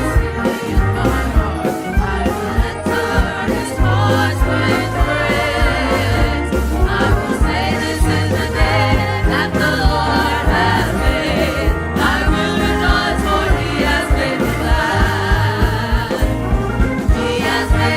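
Gospel-style church worship music: a group of singers with a band, over a steady drum beat and bass.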